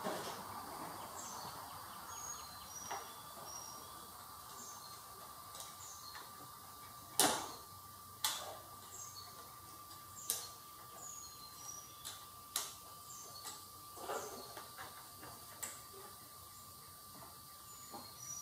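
Scattered sharp metallic clicks and knocks of hand work on the carburetor's 10 mm mounting nut on a Honda Recon 250 ATV engine, the loudest knock about seven seconds in.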